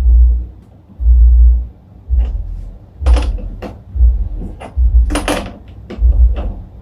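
Sharp clicks and knocks of tools and metal hardware being handled, over a deep bass thud that repeats about once a second.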